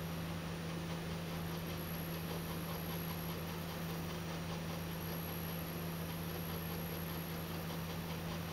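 Steady low electrical hum over an even hiss, with a faint high-pitched whine that comes and goes: room tone.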